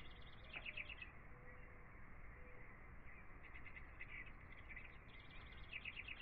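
Faint birdsong: small birds chirping in quick trilled series, in several bursts about a second apart.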